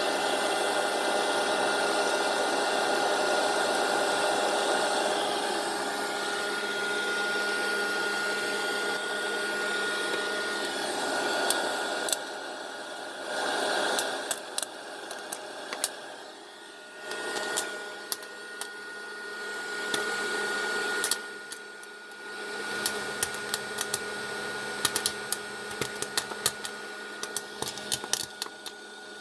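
West Bend electric popcorn popper running with a steady motor hum and whine. Kernels start popping about a third of the way in, with scattered pops that turn into rapid popping near the end.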